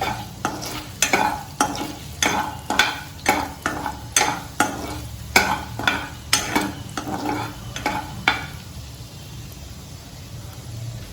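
A utensil stirring and scraping chopped garlic sautéing in melted butter in a pan, about two strokes a second; the stirring stops about eight seconds in, leaving a faint sizzle.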